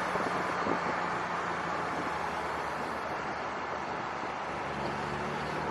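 A motor vehicle engine running steadily, with a fine rapid pulsing and a low hum.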